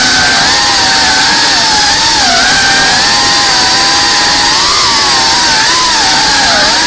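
FPV cinewhoop drone (BetaFPV Cinelog35) flying: its brushless motors and ducted propellers give a loud, steady whine over a rushing hiss, the pitch wavering up and down as the throttle changes.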